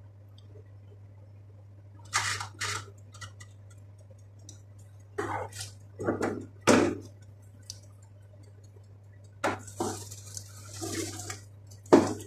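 Kitchenware handling: an aluminium foil tray of vegetables being moved, clattering and crinkling in several short bursts. Near the end comes a sharp clack as a countertop oven door is pulled open. A steady low hum runs underneath.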